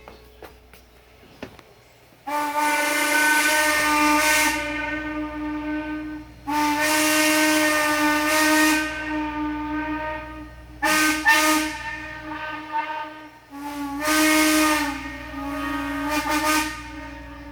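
Steam whistle of Norfolk & Western No. 475, a 4-8-0 steam locomotive, blown in a series of blasts with a rush of steam. First come two long blasts, then two short ones, then further blasts near the end.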